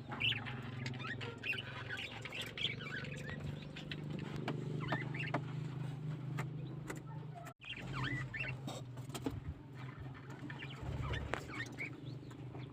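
Budgerigars chirping and chattering in short quick calls, over a steady low hum.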